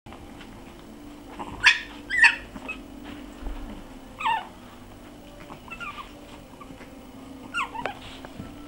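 Shih Tzu puppies about six weeks old giving short, high yips and whimpers, each dropping in pitch. The two loudest come close together about two seconds in, followed by a few fainter ones, over a steady low hum.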